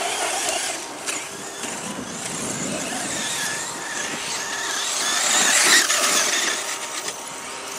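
Radio-controlled monster trucks driving on a dirt track, their small motors whining as they speed up and slow down, loudest about two-thirds of the way through.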